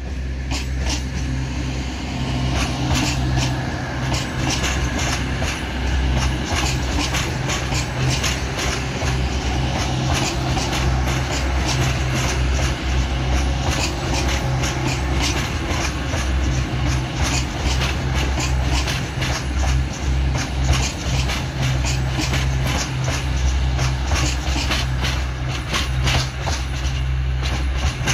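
East Midlands Railway Class 222 Meridian diesel multiple unit moving past close by. Its underfloor diesel engines give a steady low drone, and its wheels click irregularly over the rail joints and pointwork throughout.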